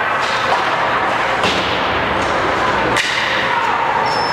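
Ice hockey game sounds in an ice rink: a steady din of crowd and play, with two sharp cracks from the play on the ice about one and a half and three seconds in.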